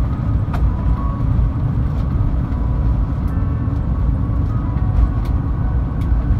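Steady low rumble inside the cabin of an Airbus A350-900 rolling along the runway after touchdown, from its Rolls-Royce Trent XWB engines and its tyres. A few faint ticks and rattles run through it.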